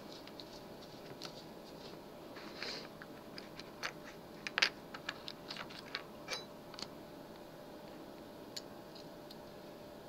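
Scattered small clicks and light taps of lock picks, a tension wrench and a padlock being groped for and handled on a desk, bunched in the middle with the sharpest click about four and a half seconds in.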